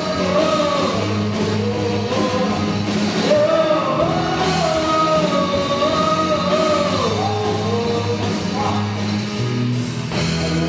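Rock band playing, with a gliding lead melody over bass and drums.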